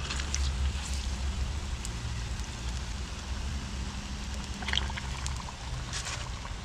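Crumbed herring fillets frying in a pan of hot oil, the oil sizzling and bubbling steadily, with a steady low hum underneath. Two light clicks, about five and six seconds in.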